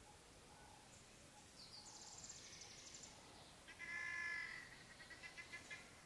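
Birds calling in the dawn quiet. A high, rapid trill comes about two seconds in, then a louder call with several tones around four seconds in, then a quick run of short repeated notes near the end.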